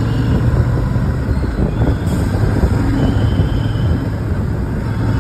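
Royal Enfield Shotgun 650's parallel-twin engine running steadily while riding in traffic, with wind and road noise over it.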